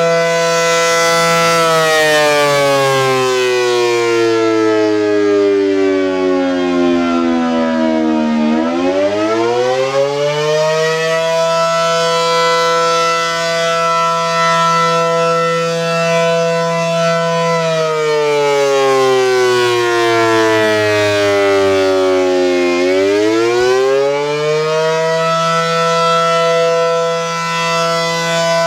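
American Signal Allertor 125 electronic warning siren sounding a slow wail, the Attack signal. Its tone holds steady, slides down over several seconds, then climbs back quickly, a cycle of roughly 14 seconds that repeats twice.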